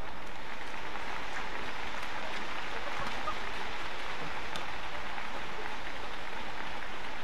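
Steady, even crowd noise from a badminton arena during a rally, with a few faint sharp strikes of racket on shuttlecock.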